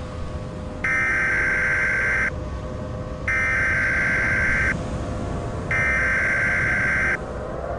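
Emergency Alert System SAME header: three identical bursts of buzzing digital data tones, each about a second and a half long with a second's gap between, signalling the start of an emergency alert broadcast.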